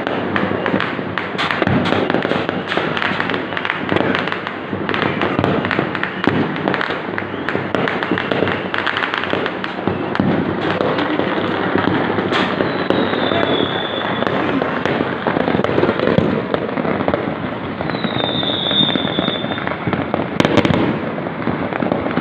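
Fireworks and firecrackers going off in a dense, continuous crackle of many rapid pops. A few high whistles sound over it, around the middle and near the end.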